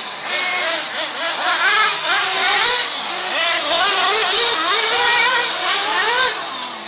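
Several electric radio-controlled off-road cars running on a dirt track, their motors whining in overlapping tones that rise and fall quickly as they accelerate and slow through the corners, over a steady hiss.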